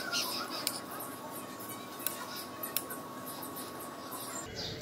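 Metal knife and fork scraping and clicking against a ceramic plate while cutting food, with a few sharp clinks.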